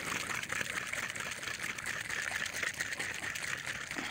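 A can of Great Stuff spray foam being shaken hard, making a fast, continuous rattling.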